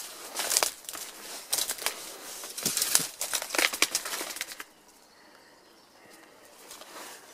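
Footsteps crunching and rustling through dry twigs, brush and loose rubble, an irregular crackling that stops about four and a half seconds in.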